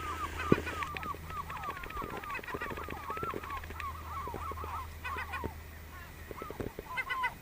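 A flock of gulls calling rapidly and over and over, a run of short falling cries several a second that thins out after about four seconds and flares up again near the end: alarm calls at a person near their island. A single sharp knock about half a second in.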